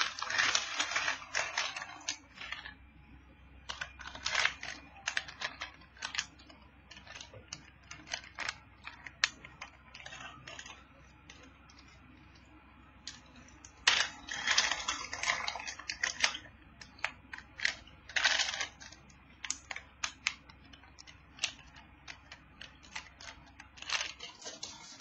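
Computer keyboard keys clicking in irregular spurts: quick runs of keystrokes at the start, about halfway through and at the end, with scattered single clicks between them.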